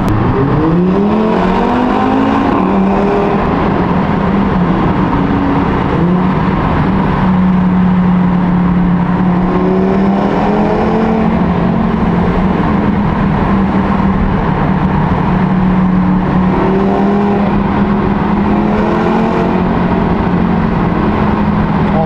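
Audi RS3's turbocharged 2.5-litre five-cylinder engine revving up hard at the start, then running at steady revs, with small rises in pitch a few times later on.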